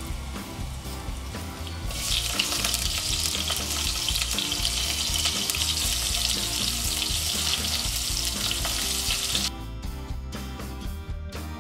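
Hot oil sizzling in a stainless steel pot as cumin seeds, asafoetida, green chillies and ginger fry for a tempering. The loud hiss begins about two seconds in and cuts off suddenly near the end, with background music throughout.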